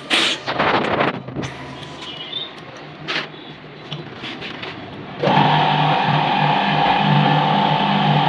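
A few knocks and rattles, then about five seconds in a Yamaha R15's single-cylinder engine is heard running steadily with an even hum.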